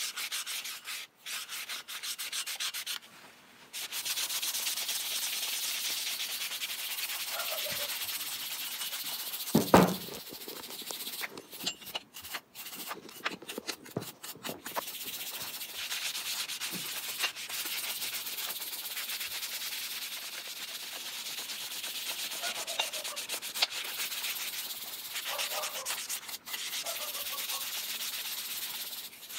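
A stiff hand brush scrubbing back and forth over a steel chisel freshly de-rusted by electrolysis, a steady rapid scratching as the residue is worked out of the pitting and grooves. It pauses briefly about three seconds in, and a single knock near ten seconds is the loudest sound.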